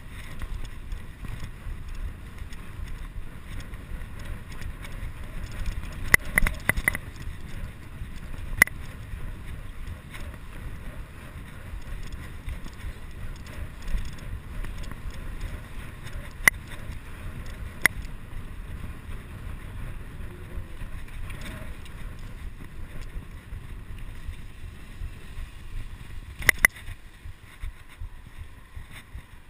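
Bicycle tyres rumbling over brick paving, with wind buffeting the microphone of a chest-mounted action camera. Sharp clicks and rattles from the bike come a few times: a cluster about six seconds in, single clicks around eight, sixteen and eighteen seconds, and a pair near the end.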